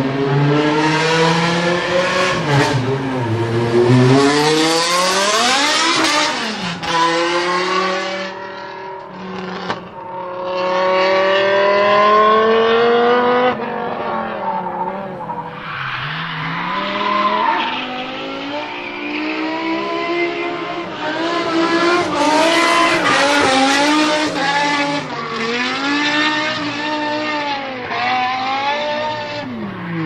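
BMW S85 5.0-litre V10 in a swapped BMW 1 Series, revving out: its pitch climbs for the first six seconds, drops, climbs again, then rises and falls over and over as the car drifts. The rear tyres squeal and spin beneath the engine note.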